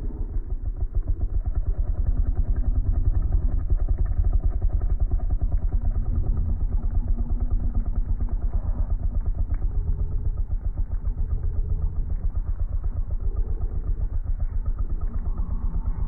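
Snow leopard purring close to the microphone: a continuous low, rapidly pulsing rumble that runs on without a break.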